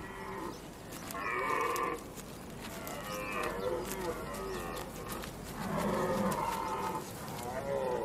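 Red deer stag roaring in the rut: three long, deep calls a couple of seconds apart, the rutting roar with which a stag holds his harem and warns off rivals.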